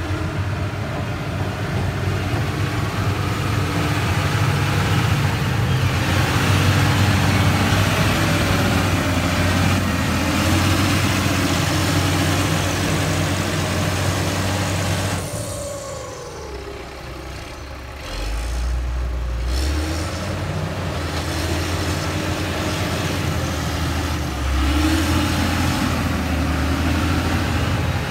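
LiuGong 4180D motor grader's diesel engine running under load while grading dirt, a steady low drone that eases off for a few seconds past the middle and then picks back up.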